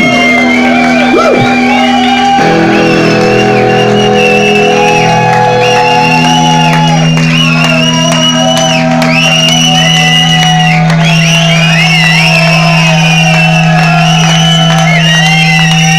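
Electronic noise music: a loud, sustained low drone that shifts to a new set of held tones about two seconds in, with wavering, gliding high whistling tones over it.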